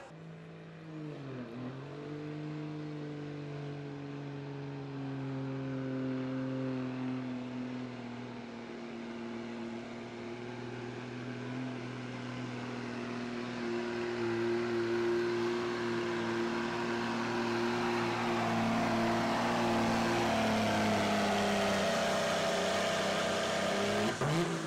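Pulling truck's engine held at high revs under load during a pull, one steady note with a brief dip in pitch about a second and a half in, growing louder toward the end.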